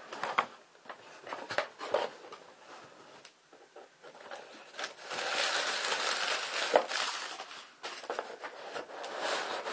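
Cardboard shipping box being handled and tipped, with a few light knocks in the first two seconds. From about five seconds in comes a long stretch of rustling and crinkling as a hand digs through the packing material inside.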